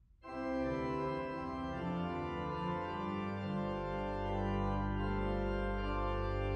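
Organ music beginning suddenly with full, held chords; a deep bass note joins about three and a half seconds in.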